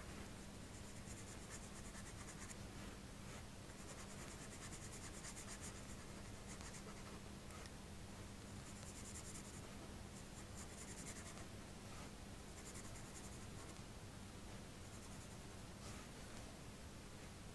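Coloured pencil (Prismacolor) scratching faintly on drawing paper in bouts of quick, short back-and-forth strokes, with short pauses between bouts as the shading is laid in.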